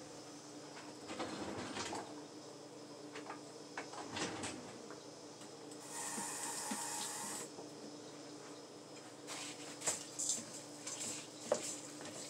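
Soft kitchen handling noises of meatloaf ingredients being stirred in a bowl, with scattered light knocks and clicks and a brief hiss of about a second and a half near the middle, over a faint steady hum.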